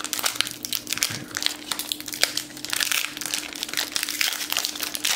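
Foil wrapper of a cricket trading card pack crinkling and crackling in the hands as it is handled and pulled open.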